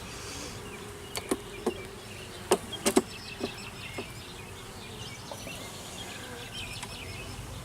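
Honeybees buzzing around an open hive, a steady hum. A cluster of sharp clicks and knocks comes from about one to four seconds in.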